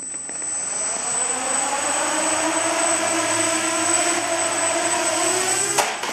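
Quadcopter's four propellers and electric motors spinning up and whirring steadily as it lifts off, with a thin high steady whine over the hum. A single sharp knock comes near the end.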